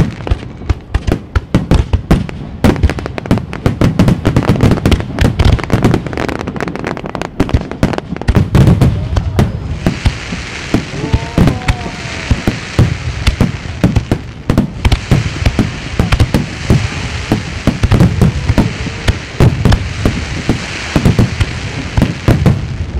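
Japanese aerial firework shells bursting in a rapid barrage: deep booms overlapping with dense cracking and popping of the stars.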